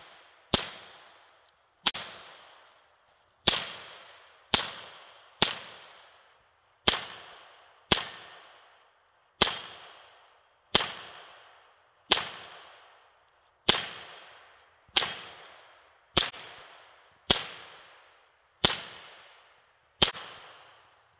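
A gun fired in rapid fire, about sixteen single shots spaced a little over a second apart, each shot followed by a ringing echo that dies away before the next.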